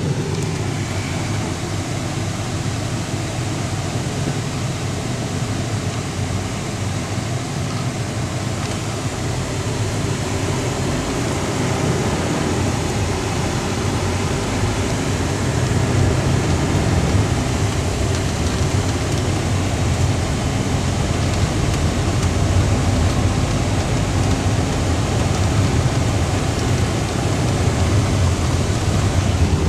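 Steady rumble and road noise of a moving vehicle, a little louder from about halfway through.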